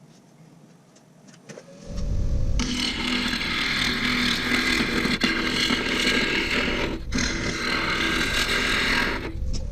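A power tool runs loudly, starting about two seconds in, with a steady motor whine under a coarse noise of wood being worked. It dips briefly near seven seconds and cuts off abruptly at the end.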